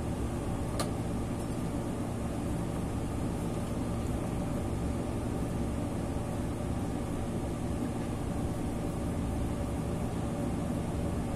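Steady low machine hum that runs without change, with one short click about a second in.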